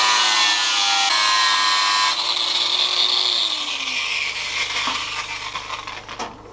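Angle grinder cutting notches into thin stainless-steel sheet, lifted off the metal about two seconds in and running free. It is then switched off, and its whine falls away as the disc spins down, about three to four seconds in.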